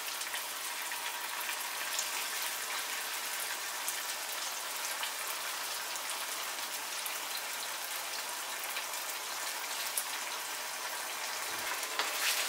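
Brinjal gravy with freshly added tamarind water sizzling and bubbling in a nonstick wok: a steady crackling hiss. A spatula starts stirring it near the end.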